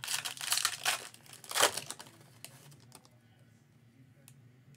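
Foil trading-card pack wrapper being torn open and crinkled by hand: a run of crackling rustles over the first two seconds with the loudest rip near the end of them, then only faint handling of the cards.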